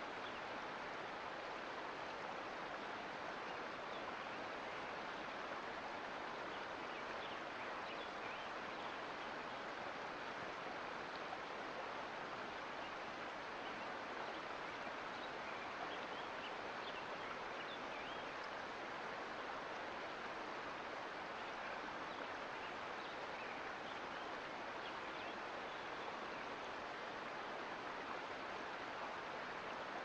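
Sierra Nevada mountain creek flowing: a steady, even rush of water with faint small splashes.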